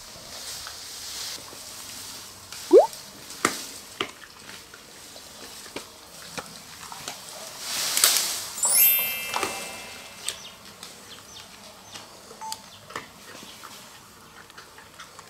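Young giant panda biting and chewing a bamboo stalk: sharp cracks and crunches at irregular moments. About eight seconds in, a swelling whoosh ends in a falling, ringing chime.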